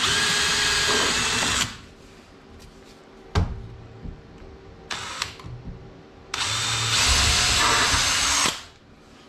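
Power drill driving screws through a steel L bracket into the floor, in two runs of about one and a half and two seconds. A single knock falls between the runs.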